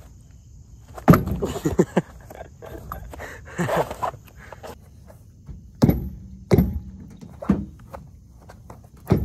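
A clatter of knocks about a second in, then a few separate dull thuds about a second apart, as a shoe kicks a truck's rear tire to knock the wheel off its hub.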